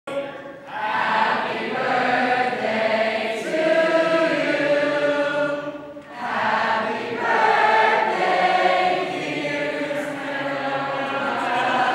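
Several voices singing together, choir-style, with a brief break in the singing about six seconds in.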